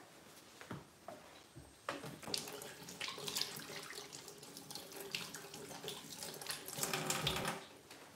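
Kitchen tap running into the sink while hands are washed under it. The water comes on about two seconds in and is shut off near the end.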